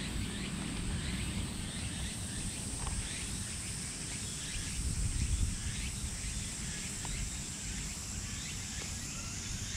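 Insects droning steadily at a high pitch, with a short chirping call repeated every half second or so, over a low rumble of wind or handling noise on the microphone.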